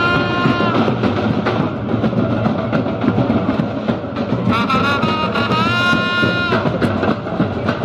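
Group of drummers playing a fast, steady beat together. A high held pitched note rides over the drums briefly at the start and again for about two seconds past the middle.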